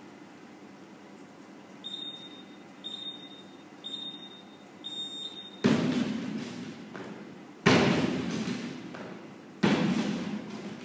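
An iPad timer's countdown: four short high beeps about a second apart. Then box-jump landings on a wooden plyo box: three heavy thuds about two seconds apart, each ringing on in the room.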